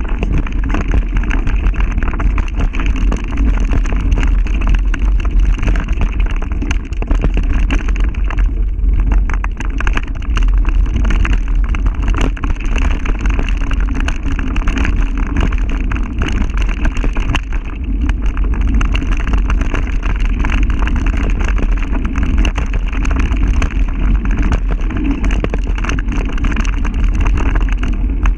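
Wind buffeting the microphone, with a steady rumble and rattle of small bumps, as a mountain bike with a mounted action camera rides fast along a dirt singletrack trail. The sound is muffled and deep, with no engine note in it.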